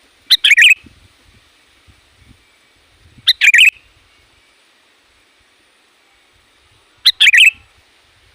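Sooty-headed bulbul singing: three short, loud song phrases of about half a second each, spaced three to four seconds apart.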